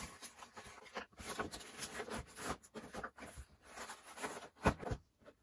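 Cardboard toy box and its plastic-wrapped tray of toy trains being handled on a table: irregular rustling and scraping, with a louder knock near the end.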